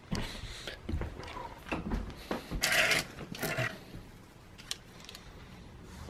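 Clothing on hangers being handled: fabric rustling and scraping in uneven bursts, loudest about halfway through, with a couple of light clicks later on.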